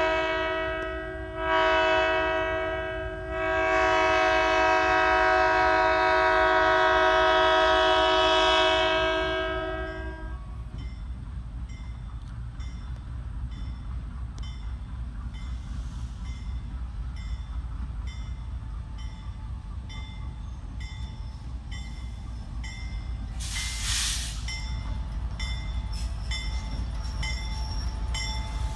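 Burlington Northern 5383 diesel locomotive sounding its multi-chime air horn in three blasts, the last a long one that ends about ten seconds in. Then its engine rumble grows as it approaches, with a bell ringing steadily about twice a second.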